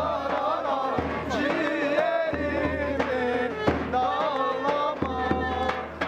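Turkish folk music: a wavering, ornamented melody over drum strokes about once a second.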